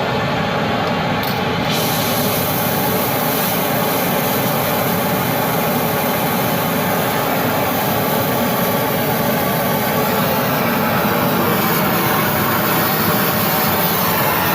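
Large gas torch burning steadily with a rushing flame, heating a rusted, seized exhaust bolt until it glows red hot; the hiss grows fuller about two seconds in.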